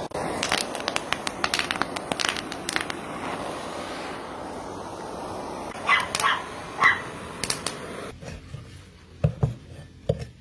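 A dog barks a few short times in the middle, the loudest sounds here, over a steady background hiss. Crackling rustles of fresh leaves being handled come first, and near the end a cleaver chops leafy greens on a wooden chopping block with a few dull thuds.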